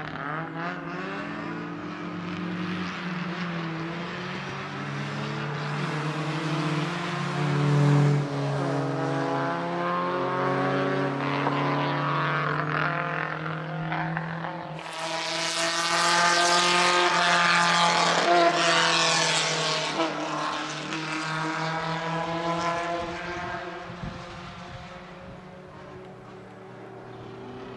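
Racing car engines at high revs passing the track edge. Their pitch rises and falls with gear changes. The sound builds to its loudest pass about halfway through, then fades away.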